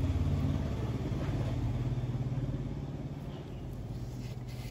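A motor vehicle engine running with a low rumble, loudest at first and fading away over a few seconds as it moves off.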